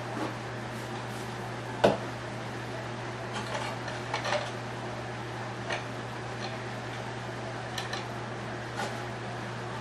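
Light clicks and taps of parts and tools being handled on a workbench, with one sharp knock about two seconds in, over a steady hum.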